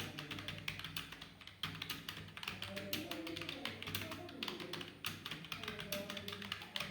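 Fast, continuous typing on a computer keyboard: a dense run of keystroke clicks at a steady typing pace.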